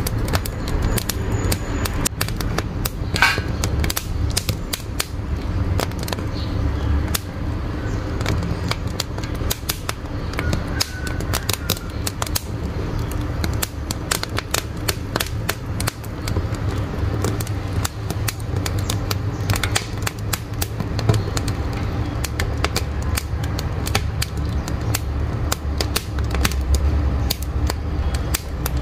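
Firewood crackling in a wood-burning stove, with irregular sharp pops and snaps over a steady low rumble of the fire.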